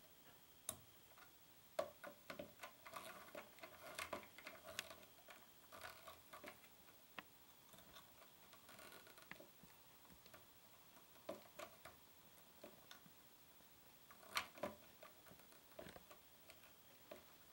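Faint scattered metal clicks and light scraping as the flats of a steel Allen wrench are slid under a guitar bridge's pivot screw head, used as a feeler gauge while the screw is turned with a screwdriver to set the bridge height. The clicks come in loose clusters, most of them a few seconds in and again near the end.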